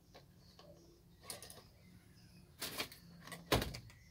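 Small clicks and knocks of batteries being pressed into a megaphone's plastic battery holder, with a louder knock about three and a half seconds in.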